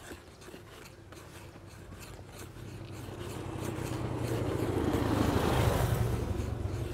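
A motor vehicle passing by: its engine hum and road noise grow steadily louder for a few seconds, peak near the end, then begin to fade.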